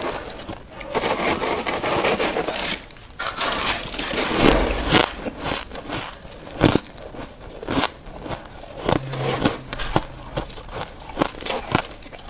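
Soft white frost ice being bitten and chewed close to a lapel microphone. Dense crunching fills the first few seconds, and after that come sharper, separate crackles and cracks as the ice breaks up between the teeth.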